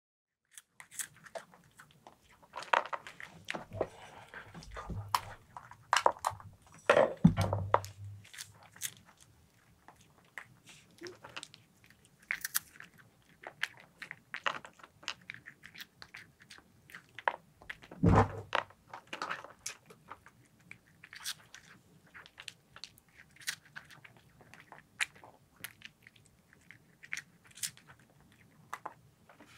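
A calico cat eating from a bowl, crunching its food with irregular crisp chewing clicks. Two louder knocks come about seven seconds in and again about eighteen seconds in.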